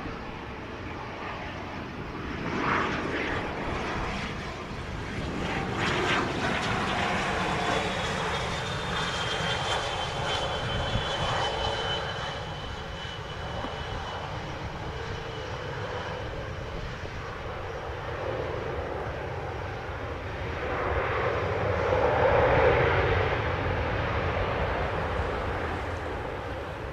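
Bombardier Challenger 300 business jet's twin turbofan engines landing, with a high whine gliding down in pitch midway through. The engine noise swells to its loudest about three-quarters of the way through as the jet rolls out on the runway.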